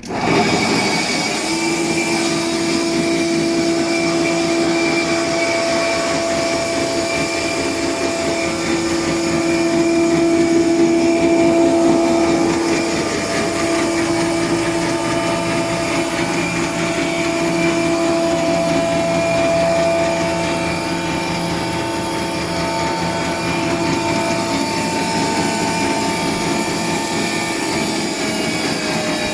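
Combination jointer-thickness planer switched on and running at speed, a loud steady whine with several held tones over the rush of the spinning cutterhead. Near the end the tones begin to drop as it starts to wind down.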